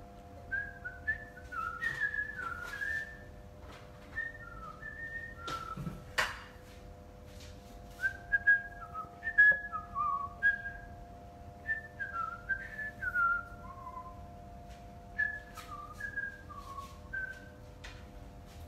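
A person whistling a slow tune in short notes, several sliding downward, in phrases with brief pauses. A few sharp clinks and knocks from kitchenware sound between the notes, the loudest about six seconds in, over a faint steady hum.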